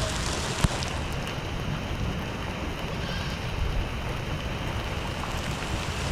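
Steady rain falling, an even hiss with no break. A single sharp knock is heard just over half a second in.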